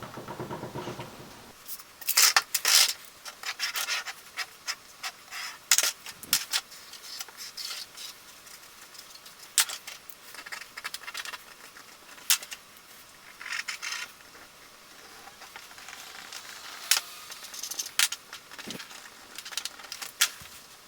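Irregular sharp clicks and short rustling, rubbing noises, as of small hard objects being handled.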